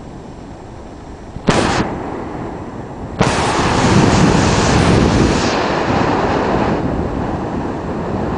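Wind gusts buffeting the camera microphone over the sound of surf: a short blast about a second and a half in, then a longer, louder one starting suddenly about three seconds in and easing off after several seconds.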